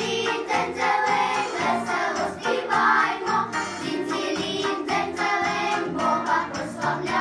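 A vocal ensemble singing a Christmas song in parts, over instrumental accompaniment with a steady beat.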